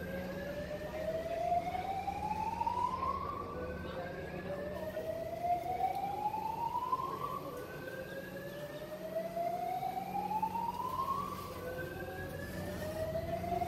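A siren rises slowly in pitch for about three seconds, drops back and starts again, four times over, with a steady low hum underneath.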